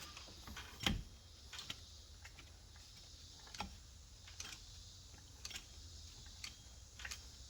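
Faint, scattered clicks and light taps, about one a second with the loudest about a second in, as an engine accessory pulley is spun by hand with the drive belt off. The pulley turns quietly, with no bearing noise.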